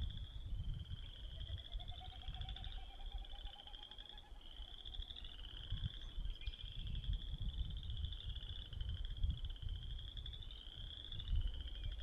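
Boreal chorus frogs calling in chorus, overlapping short rising pulsed trills repeated every second or so. About a second in, a Wilson's snipe winnows once: a faint hollow series of rising pulsed notes lasting about three seconds, made by the bird's outer tail feathers in its diving display flight. A low rumble runs underneath.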